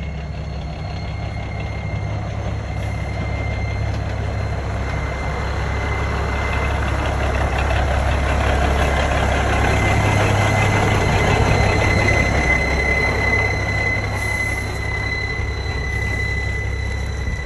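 Large truck engine running, growing louder toward the middle and easing off again near the end, with a steady high whine over the low rumble.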